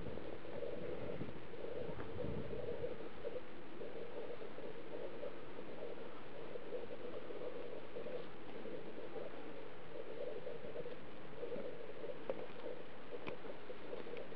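Steady background hiss with a few faint, sharp clicks.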